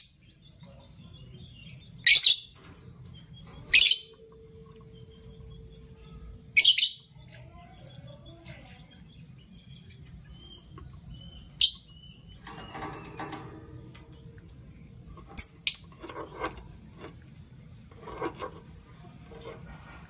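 Lovebirds giving short, sharp, high-pitched calls, about half a dozen spaced a few seconds apart, with softer chattering between them in the second half.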